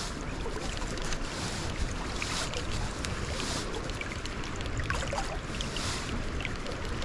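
Creek water running steadily, an even rushing with small splashes and babbles, with some wind rumbling on the microphone.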